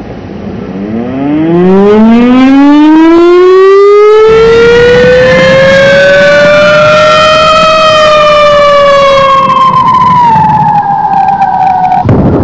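A siren-like wailing tone that slides slowly upward and then eases down, joined partway through by a second tone gliding downward. Both stop abruptly near the end, cut over to wind buffeting the microphone.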